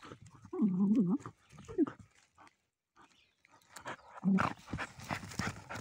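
Hunting dog baying at an armadillo holed up in its burrow, with its head down the hole. It gives a few short, wavering calls: one in the first second, a brief one soon after, and another after a pause. Its paws scratch and dig at the loose dirt near the end.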